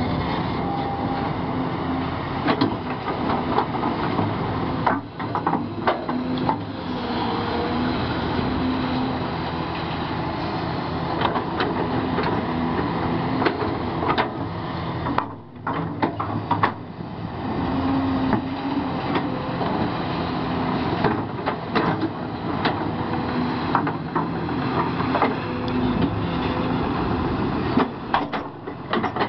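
Kobelco SK480 40-ton excavator's diesel engine working under load while its toothed bucket digs and scrapes through rocky overburden, with frequent knocks and clanks of rock against steel. There is a brief lull about halfway through.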